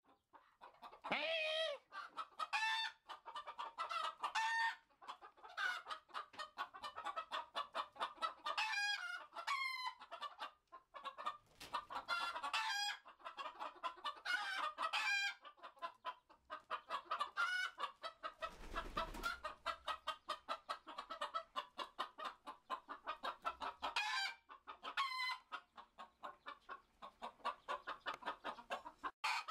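Chickens clucking and squawking in quick, nearly continuous calls, with a few louder, longer squawks standing out.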